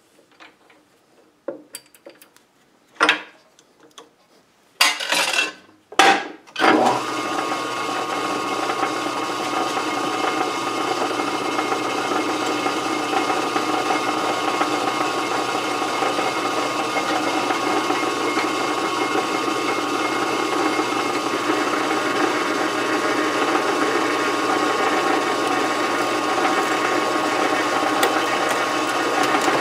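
A few clunks as the metal lathe's speed is changed by hand. About seven seconds in, the lathe starts and runs steadily with a gear whine while a cutoff tool parts off the threaded workpiece at the slower speed.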